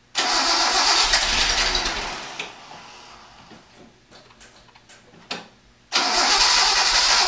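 Datsun 260Z's inline-six cranked on the starter in two bursts of about two seconds each, firing a little but not catching. The engine is gas-starved.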